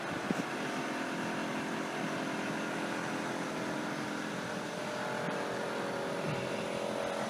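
Steady city street hum with a constant mechanical drone, like an idling engine or a ventilation unit, holding one pitch throughout. A couple of light clicks just after the start.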